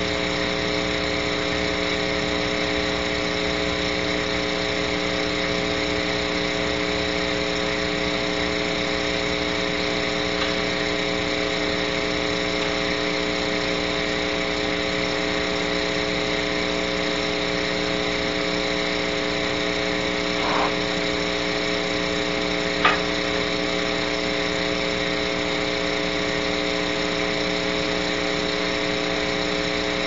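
Steady hum made of several fixed tones over a hiss, with two short clicks about two-thirds of the way in.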